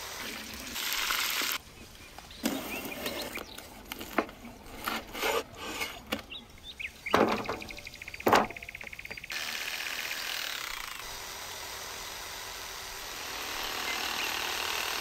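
A saw cutting through a large raw marrow bone, a steady rasping over the last five or six seconds. Before it come scattered knocks and scraping as the bones are handled and cut.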